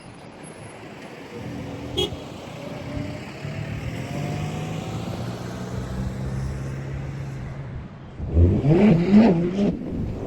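A car engine running close by for several seconds, with a sharp click about two seconds in, then a loud wavering shout near the end.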